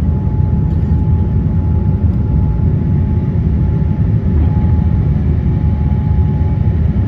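Cabin noise of a Boeing 787-9 climbing after take-off: the steady rumble of its Rolls-Royce Trent 1000 engines at climb power and the rush of air, heard from a seat by the wing, with a thin steady whine over it.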